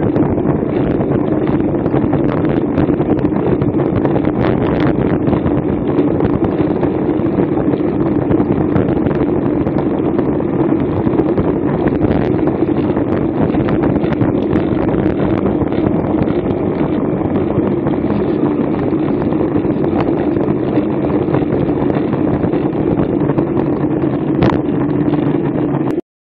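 Steady wind noise on a bike-mounted action camera's microphone, with road noise from a racing bicycle moving at speed on asphalt. It cuts off suddenly near the end.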